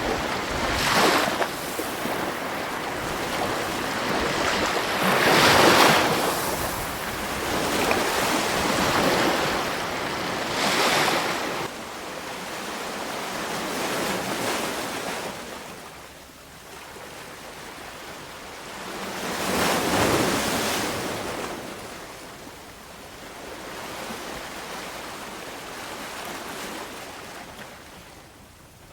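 Sea waves breaking and washing on the shore, surges coming every few seconds with hiss between; the last waves are softer and it fades near the end.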